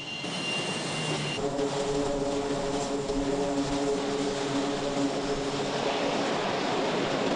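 Military aircraft engines running at high power on a carrier flight deck, a steady loud rushing noise. A high whine sounds for the first second or so, then gives way to a set of steady low hums.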